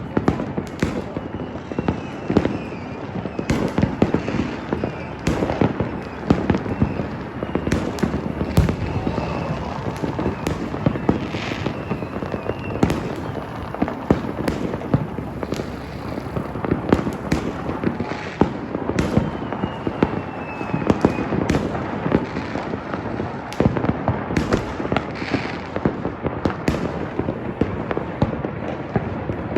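Fireworks and strings of firecrackers going off continuously: a dense, unbroken crackle with frequent louder bangs and a few faint whistles now and then.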